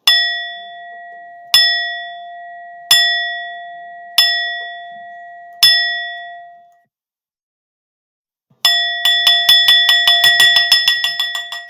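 A Tibetan bell struck five times, about a second and a half apart, each stroke ringing out and fading. After a short pause it is struck in a fast run of strokes that speeds up.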